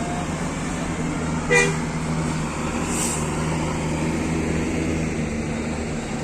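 Bus engines idling steadily, with one short horn toot about one and a half seconds in and a brief hiss about a second and a half later.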